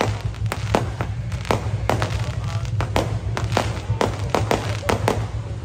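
Fireworks going off in a steady barrage: sharp bangs, irregular and roughly two a second, some louder than others, over a steady low rumble.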